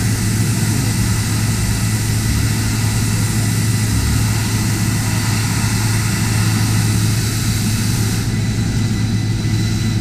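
Horizontal machining center's spindle milling a hard material, not aluminum: a steady cutting noise with a thin constant whine over a low hum.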